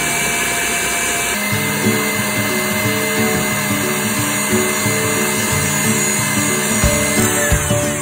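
KitchenAid Artisan stand mixer running with its wire whisk beating meringue for Swiss buttercream: a steady motor whine under background music. Near the end the motor slows and the whine falls in pitch.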